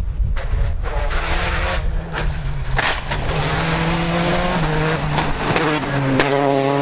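Rally car at full throttle on a gravel stage: the engine revs hard, its note stepping up and down through quick gear changes in the second half, over the rush of tyres throwing gravel, with a few sharp cracks.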